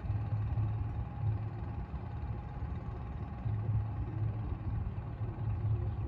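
A boat engine running steadily: a low rumble with a faint steady whine above it.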